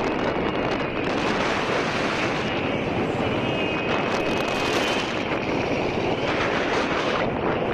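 Wind rushing over a helmet-mounted action-camera microphone while riding a Royal Enfield Meteor 350, with the motorcycle's single-cylinder engine and road noise as a steady rumble underneath.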